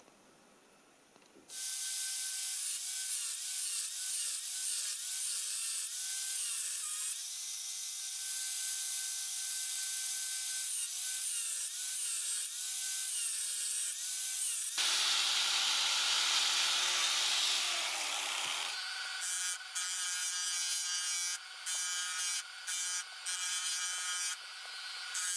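Angle grinder cutting through a small brass ring, its motor pitch dipping again and again as the disc bites into the metal. About fifteen seconds in it gives way to a belt sander grinding a brass ring segment, with short breaks as the part is lifted off the belt.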